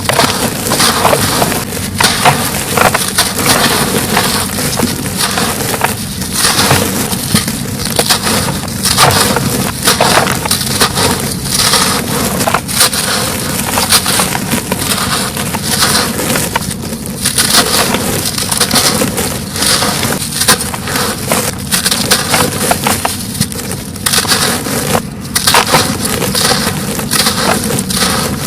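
Dry white cement or concrete chunks crunching and crumbling as they are crushed: a dense, unbroken run of sharp crackles.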